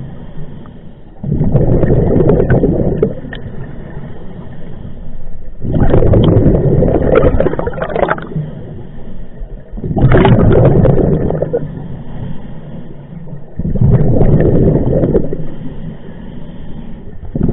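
A scuba diver's regulator breathing underwater: a bubbling rush of exhaled air lasting about two seconds and coming about every four seconds, with quieter stretches between breaths. There are four such exhalations, and a fifth begins at the very end.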